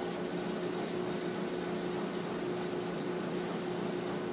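Grizzly wood lathe running steadily at low speed, a pen mill in its chuck reaming the end of a pen blank down to the brass tube; a steady hum.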